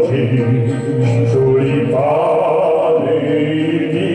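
A man singing into a handheld microphone over amplified instrumental accompaniment through a PA.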